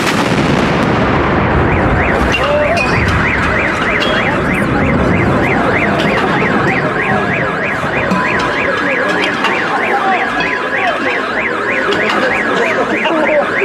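Rumble dying away after a volley of blank rounds from D-30 howitzers. Then, from about two seconds in, a car alarm sounds a fast rising-and-falling whoop, about three sweeps a second, set off by the blast.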